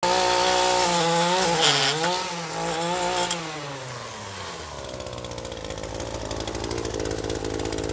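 Small gas engine of a landscaper's lawn equipment running, its pitch rising and falling over the first few seconds, then settling into a quieter, lower, steady pulsing.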